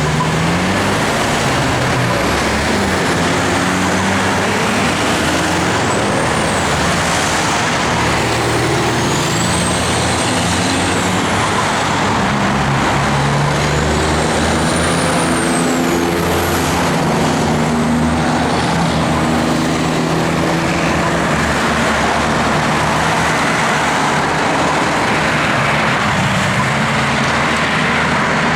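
A road vehicle travelling, with steady engine and road noise. The engine's low pitch wavers, and a high whine rises and falls several times.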